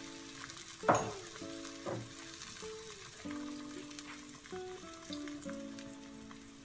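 Courgette slices sizzling in a non-stick frying pan: a steady, even frying hiss, with a knock about a second in and a smaller one about two seconds in.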